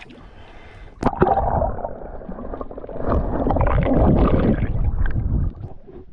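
Sea water splashing about a second in as the microphone goes under the surface, then muffled underwater bubbling and rushing water from a diver's movements, loudest from about three to five seconds in.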